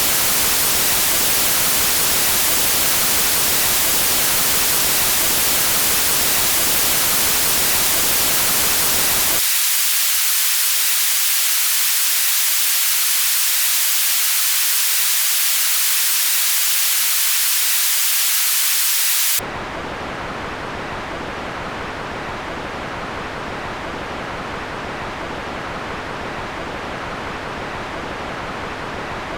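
Synthetic white noise generated in Csound: a steady full-range hiss, which about ten seconds in turns thin and bright as a Butterworth high-pass filter at 1500 Hz (butterhp) strips out the lows. About twenty seconds in a Butterworth low-pass filter at 1500 Hz (butterlp) takes over, and the hiss turns duller and quieter.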